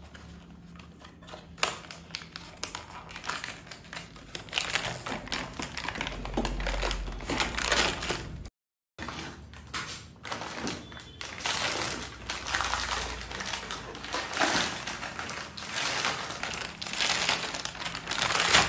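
Irregular crackling and rustling of packaging being handled: a utility knife slitting cardboard, then the foil wrapping of a welding-wire spool crinkling as it is peeled off.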